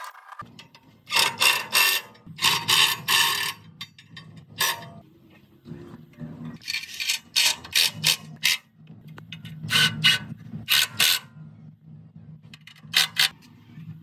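Hand-tool work on the concrete mixer's metal parts: short mechanical strokes in groups of two to five with pauses between, over a low steady hum.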